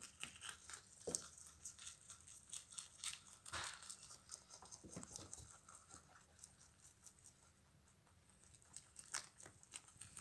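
Two rabbits chewing and tearing Chinese broccoli leaves: quiet crisp crunches with crinkling of the leaves. The sounds thin out past the middle and pick up again near the end.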